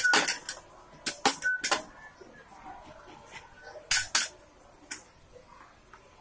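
Several sharp clicks and clinks, mostly in quick pairs: a pair just after the start, another about a second in, and another about four seconds in.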